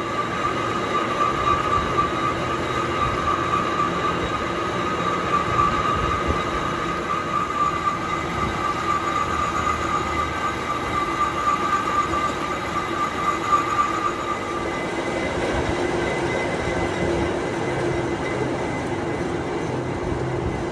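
A workshop machine running steadily with a high whine over a lower hum. The whine fades out about fifteen seconds in, and the lower hum carries on.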